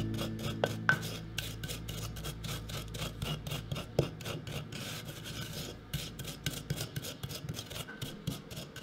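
Wooden pestle crushing nacho chips in a wooden mortar: fast, even crunching and rasping strokes, about four or five a second.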